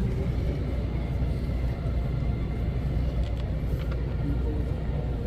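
Steady low rumble of city traffic, with no clear single event standing out.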